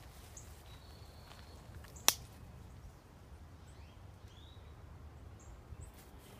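Quiet woodland outdoors: a few short, high bird chirps over a low steady rumble, with one sharp click about two seconds in as the loudest sound.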